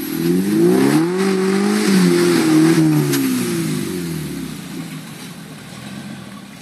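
Suzuki SJ413's 1.3-litre four-cylinder petrol engine revving under load on a rocky climb: the pitch rises in the first second, holds, then falls away from about three seconds in as the engine eases off. There is a single sharp knock about three seconds in.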